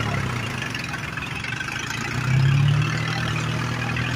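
Farmtrac tractor's diesel engine running steadily under load while dragging a soil leveller through soft soil, briefly surging louder a little over two seconds in before settling back.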